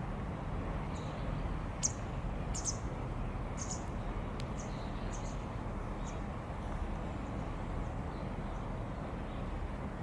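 Small birds chirping: a scatter of short, high chirps in the first half, over a steady low background rumble.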